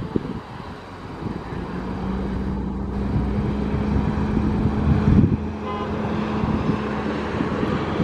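A heavy vehicle running close by: a low rumble that swells over the first two seconds, with a steady hum through the middle that fades out a little past five seconds. Wind blows on the microphone.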